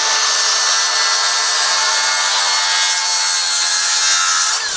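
Circular saw cutting a 45-degree angle off the end of a western red cedar bench board, running at a steady pitch through the cut, then winding down near the end.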